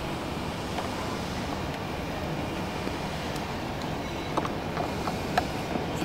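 Handling noise of a plastic-wrapped headrest monitor being fitted onto its bracket, with a few light plastic clicks near the end, over a steady low rumble.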